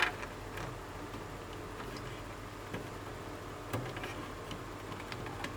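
A few faint clicks from handling power connectors and cables inside a desktop computer case, over a steady low hum.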